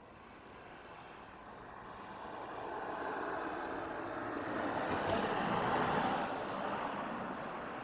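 A car approaching: engine and tyre noise growing steadily louder, loudest about five to six seconds in, then easing off slightly.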